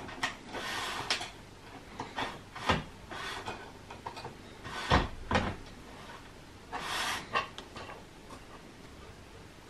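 Steel nuts on a linear rail clicking and scraping as they are slid into the slot of an aluminium extrusion: a handful of separate metal clicks with two short sliding scrapes.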